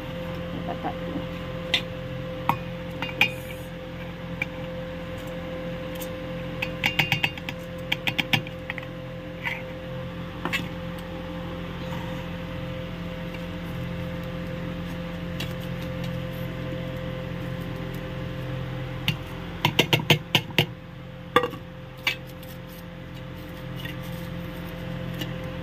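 Stainless steel clinks and taps as soaked rice is put into a steel mixer-grinder jar: scattered quick clicks, with a cluster about a quarter of the way in and the loudest cluster about three quarters through. A steady low hum runs underneath.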